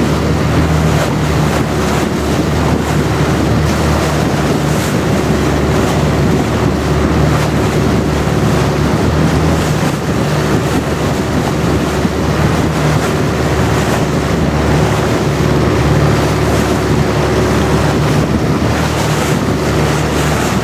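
Long-tail boat's engine running steadily at cruising speed, with water rushing past the hull and wind buffeting the microphone.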